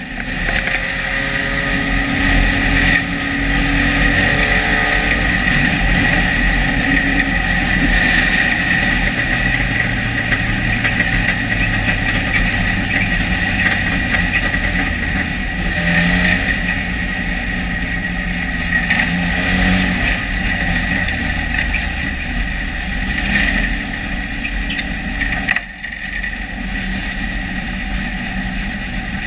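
Dirt-track stock car's engine at racing speed, heard from inside the cockpit, rising and falling with the throttle, with a steady high whine over it. The sound drops briefly and sharply near the end, then picks back up.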